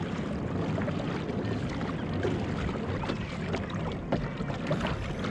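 Ocean water sloshing and lapping against a plastic fishing kayak's hull, with scattered small clicks and knocks.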